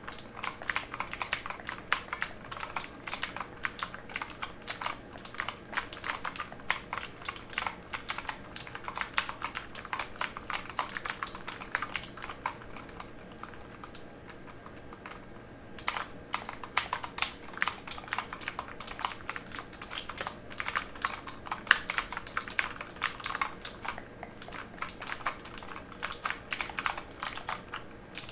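Fast typing on a mechanical keyboard, a rapid stream of key clicks. It stops for about three seconds around the middle, then starts again.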